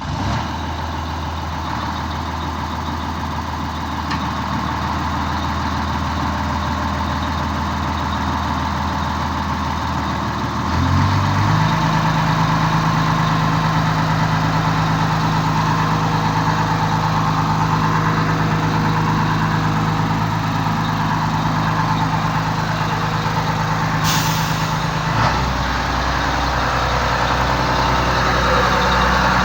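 Crane's engine running just after starting. It speeds up to a higher steady speed about eleven seconds in and drops back down to a lower speed near the end, with a short air hiss just before the drop.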